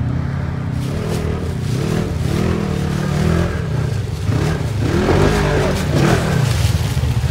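Polaris RZR side-by-side engine revving up and down repeatedly as the machine crawls up over a rock ledge, with the revs climbing highest about five to six seconds in.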